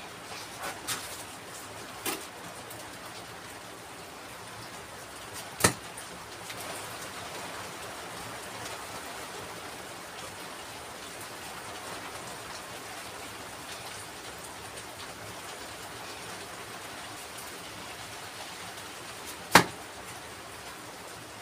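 Dry-stone sink base being built up with stones and mortar: a few short squirts from a hand spray bottle wetting the stones at the start, then two sharp stone knocks, about six seconds in and near the end, over a steady hiss.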